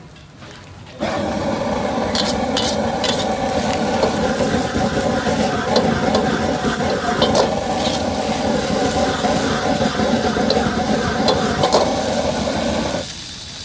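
Rice noodles stir-frying in a hot wok: loud sizzling with metal spatula scrapes and clanks against the wok. The noise starts abruptly about a second in and drops away near the end.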